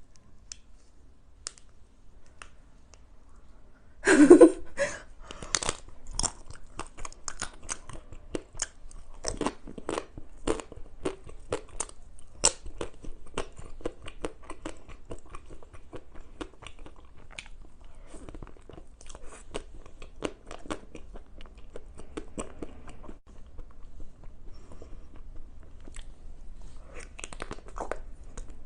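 Close-miked biting and crunchy chewing of a Magnum matcha ice cream bar's crisp chocolate coating: a loud bite about four seconds in, then a steady run of small crackling crunches, with another louder bite near the end.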